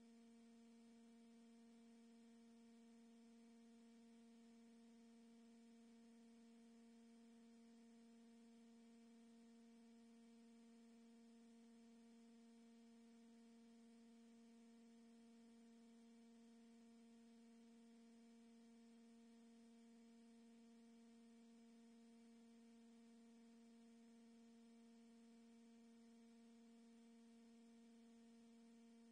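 Near silence with a faint, steady hum: one low tone with a few higher overtones, unchanging, over a light hiss.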